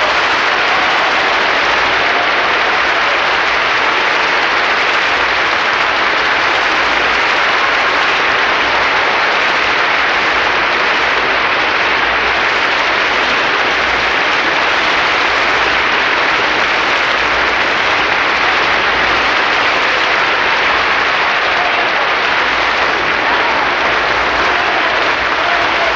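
Large audience applauding, a dense, even clapping that keeps a steady level without letting up.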